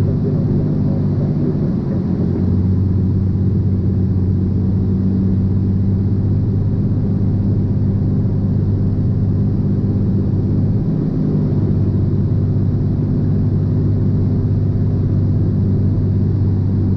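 Cirrus SR22 Turbo's six-cylinder piston engine and propeller droning steadily as heard inside the cabin, at reduced power for the landing approach. Its note shifts slightly about two seconds in and again about eleven seconds in.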